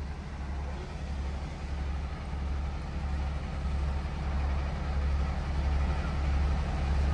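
Sewage suction truck running at the rear, a steady low drone that grows slightly louder toward the end.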